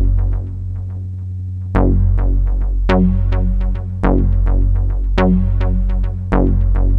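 Electronic background music with a steady bass and synthesizer notes repeating in a regular pattern.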